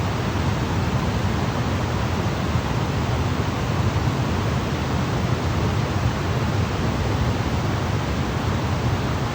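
Waterfall: a steady, unchanging rush of falling water with a deep low rumble under the hiss.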